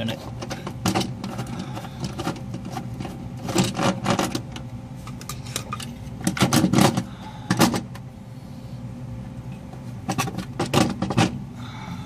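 Hands handling the wiring and terminals of an HVAC unit's contactor: repeated clicks, knocks and metallic rattles, in clusters about four, seven and eleven seconds in. A steady low machinery hum runs underneath.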